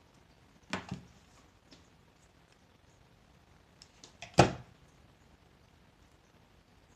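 A plastic hot glue gun knocking against a wooden tabletop as it is handled. There is a double knock about a second in, a few small clicks, and a louder knock a little after four seconds as it is set back down.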